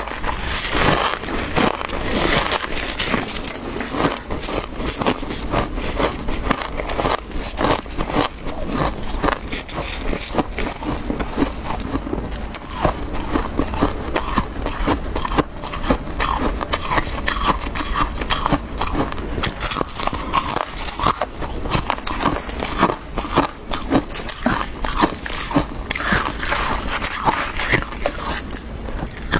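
Freezer frost being bitten and chewed, heard close up as a dense, unbroken stream of small crisp crunches and crackles.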